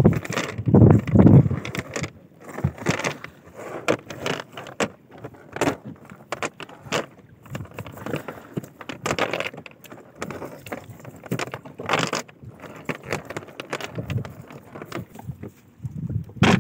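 Irregular rustling, clatter and knocks of a nylon fishing net being pulled in by hand and shaken out over a boat deck, with hilsa fish dropping onto the deck. It is loudest in the first second and a half.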